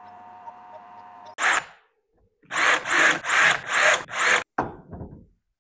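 A drill press running with a low, steady hum, then a handheld cordless drill triggered in short bursts, about five in a row, its motor whine rising each time as the bit works in a hole in a steel part.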